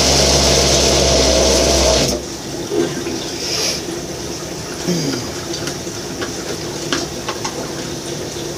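Bullet-style personal blender running while pressed down, churning beef heart, seafood and vegetables into a thick paste. It cuts off about two seconds in, followed by light clicks and knocks as the cup is handled.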